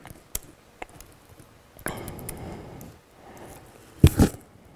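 Laptop keyboard keystrokes, a few scattered clicks, picked up by the podium microphone, with a louder double knock on the lectern or laptop about four seconds in.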